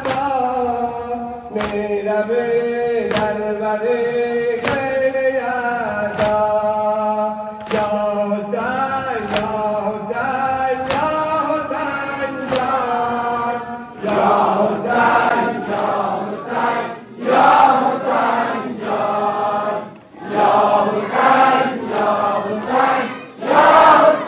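A Shia Muharram noha sung by male voices: a slow, sustained lament with a sharp chest-beating slap about every second and a half. About fourteen seconds in, the mourners switch to loud, short, rhythmic chanted phrases in unison.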